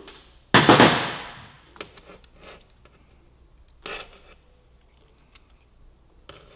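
Small metal parts being worked by hand at a motorcycle's rear brake master cylinder linkage as the cotter pin comes out of the clevis pin. There is a loud scraping rattle about half a second in that fades over about a second, a shorter one near four seconds, and scattered light clicks.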